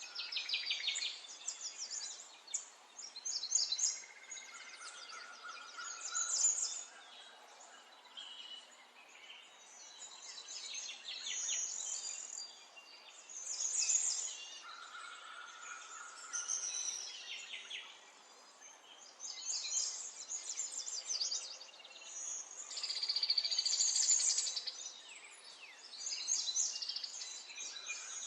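Small songbirds chirping and trilling, several calling at once, in rapid bursts of short notes that swell and fade every few seconds.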